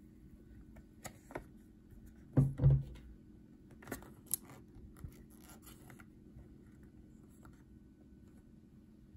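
Handling sounds of a paper-lidded instant noodle cup as the peeled lid is folded back down and pressed shut: scattered small clicks and crinkles, with two loud low thumps close together about two and a half seconds in, then light rustling that stops about six seconds in.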